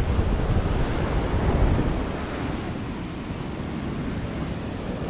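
Surf breaking and washing up a sandy beach, with wind buffeting the microphone in a steady low rumble.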